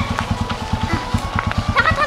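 Motorcycle engine idling with a fast, even low putter, under background music.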